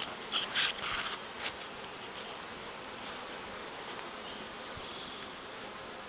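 Honeybees buzzing in a steady hum around open hives, with a few light knocks and clicks of handling in the first second and a half.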